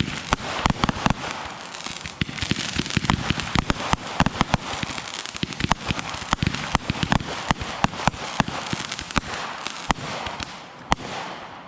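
A dense barrage of fireworks: rapid overlapping bangs and crackling, many reports a second, easing off near the end.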